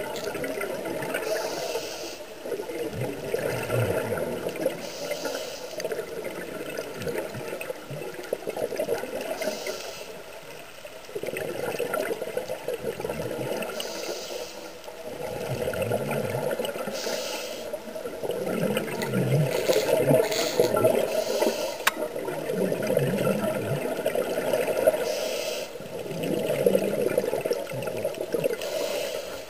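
Scuba diver breathing through a regulator underwater: a short hiss about every three to four seconds and the low gurgle of exhaled bubbles between, over a steady underwater rush.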